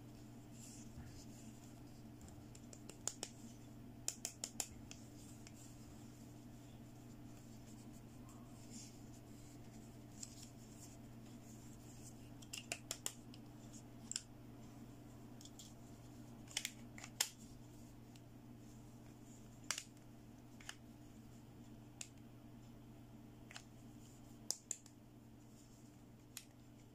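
Scattered light clicks and taps of small plastic toy pieces being handled, some single and some in quick runs of three or four, over a faint steady hum.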